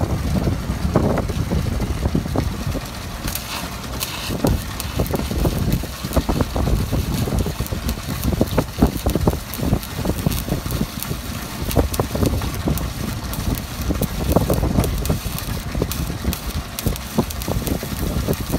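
Wind buffeting the microphone: an uneven, gusty low rumble with irregular thumps.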